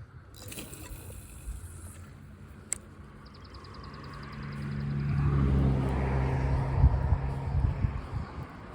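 A motor vehicle passing on a road: its engine and tyre noise builds over a few seconds, peaks, then fades away.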